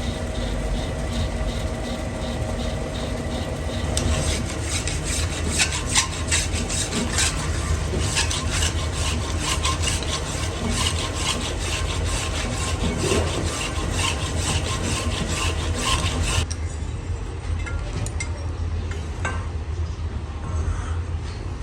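Metal lathe running with a steady hum while a tool or file scrapes the turning metal workpiece in rapid rasping strokes. The scraping gives way to quieter machine running about three-quarters of the way through.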